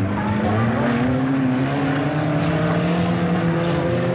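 Racing car engines running hard on a grass track circuit: one engine's note rises steadily as it accelerates, over another engine holding a steady lower note.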